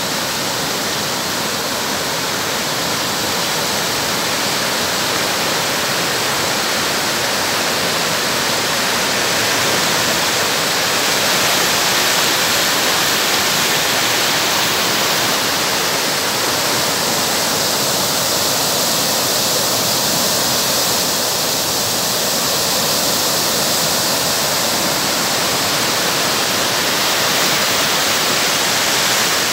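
Muddy floodwater pouring over the spillway of an overflowing small dam: a steady, even rush of falling water.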